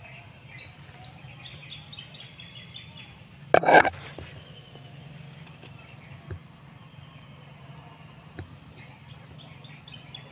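Small birds chirping against a steady low outdoor background. About three and a half seconds in, a brief loud scraping rustle of the phone being handled, and later two faint knocks.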